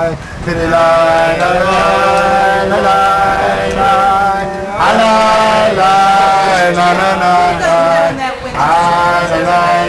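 Background music: a slow vocal chant of long held, wavering notes over a steady low drone. Short breaks between phrases come about half a second in, near five seconds and a little past eight seconds.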